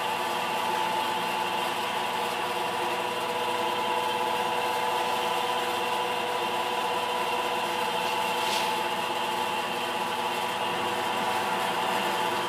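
Force International knee mill running steadily, its spindle motor and drive giving a continuous hum with a whine.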